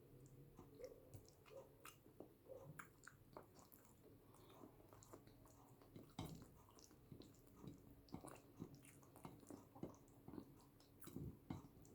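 Faint close-miked chewing of boiled yam with eggplant sauce: a steady run of short, wet mouth clicks and smacks, several a second.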